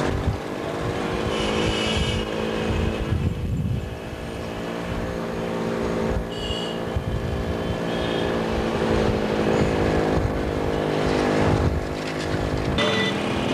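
Motorcycle and scooter engines running steadily at low road speed in slow street traffic, with a few short higher-pitched sounds over the top.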